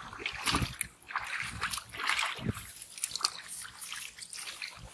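Water splashing and sloshing in a shallow muddy pond as it is bailed out with a metal bucket and scooped by hand, in a run of irregular splashes.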